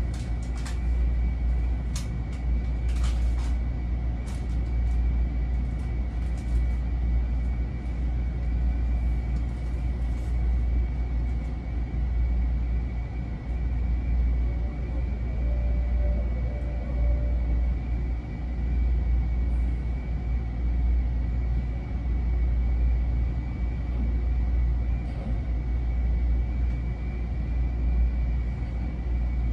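Inside a Seibu 10000-series limited express car standing still at a platform: the train's onboard equipment gives a steady low hum with a faint high, steady whine. Scattered light clicks come through the first ten seconds or so.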